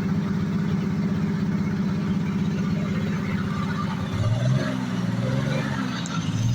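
An engine runs steadily with an even, fast pulse. About four seconds in, the sound turns uneven, with low wavering tones.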